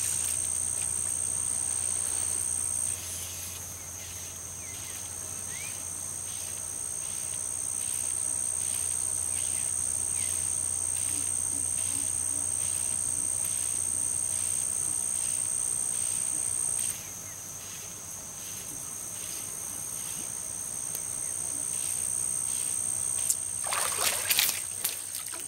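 Steady high-pitched insect chorus with a regular pulsing chirp. About two seconds before the end, a short splash as a small tarpon strikes a fly at the water's surface.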